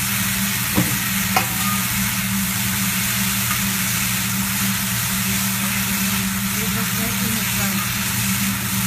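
Food sizzling on a hot teppanyaki griddle, a steady hiss with a steady low hum underneath. Two sharp clinks stand out about a second in.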